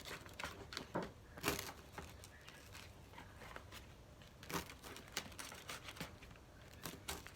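Faint, scattered crunches and taps of a kid's knife cutting through buttered toast on a cutting board: toast crust cracking and the blade knocking the board every second or so.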